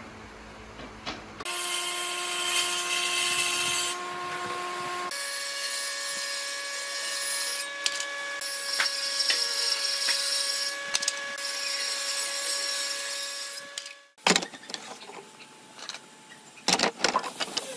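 Electric woodworking power tools running with a steady whine, the pitch changing abruptly twice. The last few seconds hold a series of sharp knocks and clatters.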